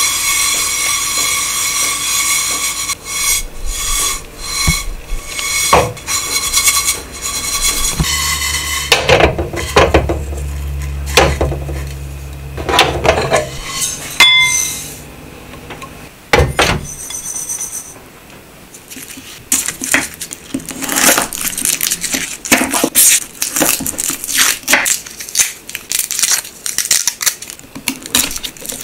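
White sesame seeds rattling and shifting as they are dry-roasted and shaken in a small stainless-steel saucepan over a gas burner, with clinks from the pan. Near the middle the seeds are poured out into a ceramic bowl. In the last third comes a quick series of knife taps on a wooden cutting board as garlic is chopped.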